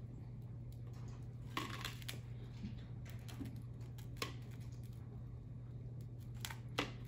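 Soft dough balls being placed by hand into an air fryer basket: a few faint, light taps and clicks, about a second and a half in, about four seconds in and twice near the end, over a steady low hum.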